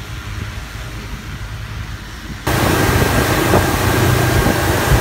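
Low steady engine hum, then about two and a half seconds in an abrupt jump to a much louder mix of a boat's outboard engine running and wind rushing over the microphone as the boat is under way.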